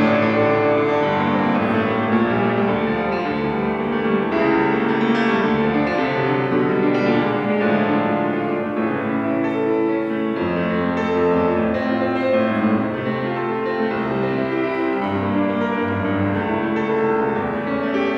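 Solo piano playing a classical piece, a steady flow of notes with full chords and no pause.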